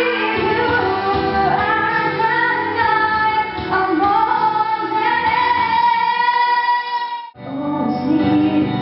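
A woman singing through a handheld microphone over backing music, holding long sustained notes. Near the end the sound cuts out for a moment and another woman's singing picks up.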